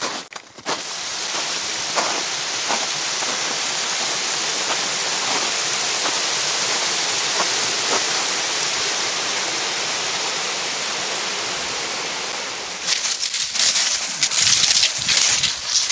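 Spring meltwater brook rushing over rocks, a steady even rush that starts about a second in. Near the end it gives way to a run of irregular scraping bursts.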